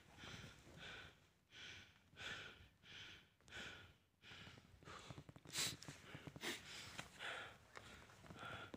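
A person panting hard close to the microphone, out of breath from the climb: quick, even breaths about one and a half a second, with one sharper, louder puff a little past halfway.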